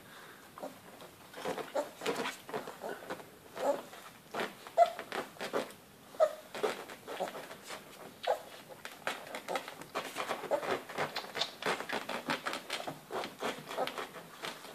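Four-week-old Great Dane puppies suckling from their mother: a busy run of wet smacking and clicking mixed with brief small squeaks and grunts.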